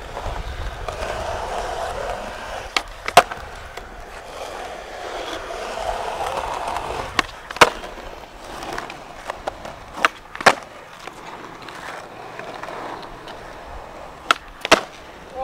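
Skateboard wheels rolling on rough asphalt, with four flatground flip tricks. Each trick is a pair of sharp clacks about half a second apart: the tail popping, then the board landing.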